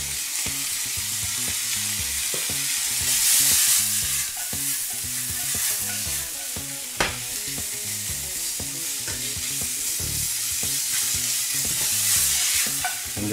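Julienned vegetables and mung bean sprouts sizzling in a nonstick frying pan as it is tossed, the sizzle swelling with the tosses about three seconds in and again near the end. A single sharp click about seven seconds in.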